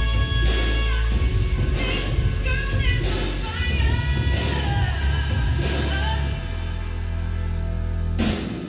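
Pop song with a sung vocal over a heavy, steady bass line and a regular beat, played back through home-theater speakers and a subwoofer.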